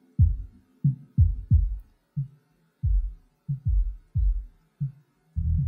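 Playback of a song's low end heard alone through a soloed low EQ band, while searching the mid channel for the frequency to boost. Muffled kick drum thumps sound, each dropping in pitch, with nothing of the upper mix audible. Near the end a continuous low bass comes in.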